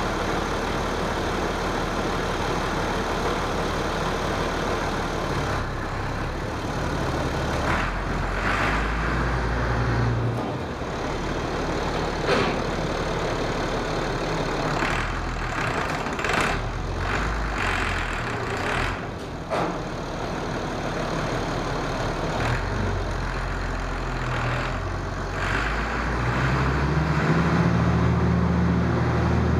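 Massey Ferguson 2705 tractor's diesel engine running under steady throttle, with a few short rattles and knocks. It picks up in pitch and loudness near the end.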